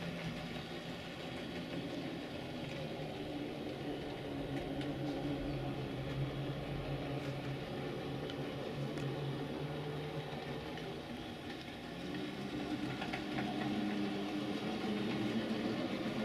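H0 scale model train running on the layout: a steady hum from the model diesel locomotive and its rolling coaches. The pitch of the hum shifts about twelve seconds in, and it grows a little louder near the end.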